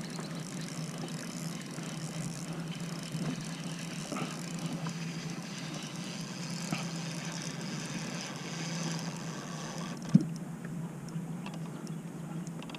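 Steady wind and water noise around a kayak on choppy water, with one sharp knock about ten seconds in.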